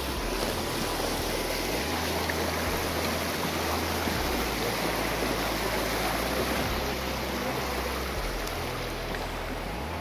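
Shallow rocky forest stream rushing and splashing over and between boulders, a steady, even water sound.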